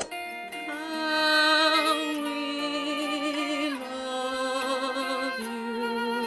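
Slow outro music: a melody of long held notes with vibrato over a soft accompaniment, the notes changing about every one to two seconds.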